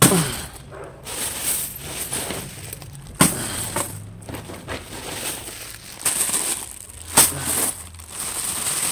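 A bag of mixed metal coins being handled in a clear plastic bag: the coins jingle and shift against each other while the plastic crinkles. Sharper clinks come right at the start, about three seconds in and about seven seconds in, as the bag is set down or shaken.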